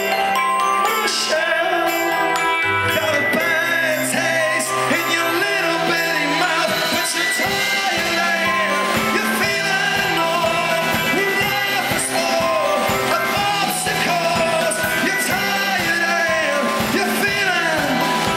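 Live rock band playing: a male singer belting and shouting into the microphone over electric keyboards and a steady drum beat.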